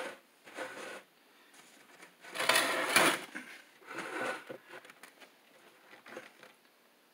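Handling noise from a large sheet of stiff white board being lifted and moved about, with short rustles and scrapes and the loudest burst about two and a half seconds in.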